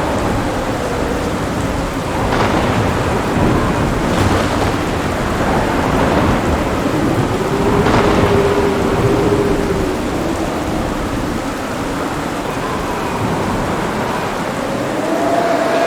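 Heavy rain falling steadily with rumbling thunder, a few sharper cracks standing out about two, four and eight seconds in.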